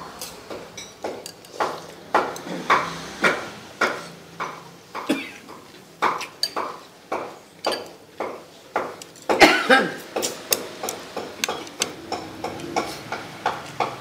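Metal spoon clinking and scraping against a ceramic plate as the noodle salad is tossed, a sharp clink about twice a second, the loudest about two-thirds of the way through.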